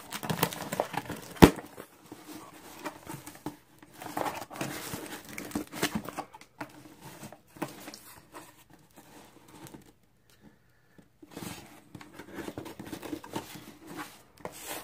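Scissors cutting packing tape on a small corrugated cardboard box, then tape tearing and cardboard flaps rustling and scraping as the box is opened and handled. A sharp snap about a second and a half in is the loudest sound.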